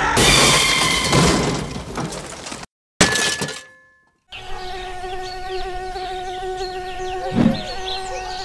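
A loud noisy burst that fades and cuts off short, then a brief silence. From about four seconds in, a small camera drone's propellers buzz at a steady pitch.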